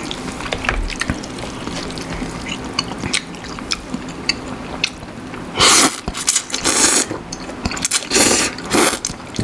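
A person slurping instant noodles in broth off chopsticks, close to the microphone. The first half holds only small clicks and chewing sounds; then come four loud slurps in quick succession.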